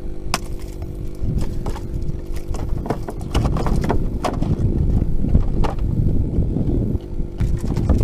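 A freshly landed fish thrashing on a wooden boat deck: a string of irregular knocks and thumps over the steady hum of an engine.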